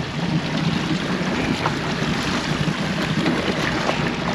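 Sea water splashing and sloshing at the side of a boat as a hooked striped marlin is held alongside. There is steady wind noise on the microphone underneath.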